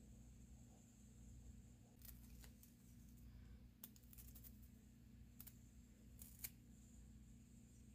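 Near silence with a steady low hum and a handful of faint, short clicks from hands handling and peeling nail polish strips.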